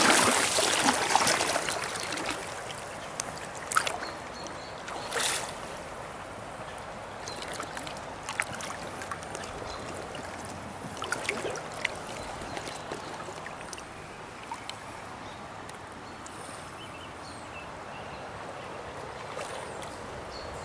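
A hooked steelhead thrashing and splashing at the surface for about two seconds at the start, then steady gentle river water with a few brief splashes and knocks.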